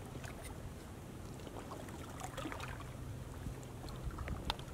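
Quiet riverbank ambience: a steady low rumble with a few faint ticks, and one sharper click near the end.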